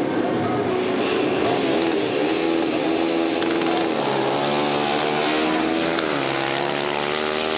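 Two quad bike (ATV) engines running at a sand drag-race start line, then launching about four seconds in and accelerating hard. The pitch rises, dips once just after six seconds in, and rises again.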